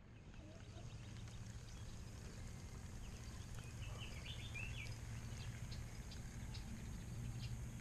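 Faint rural outdoor ambience: a steady low hum with scattered faint ticks, and a brief burst of chirping animal calls about four seconds in.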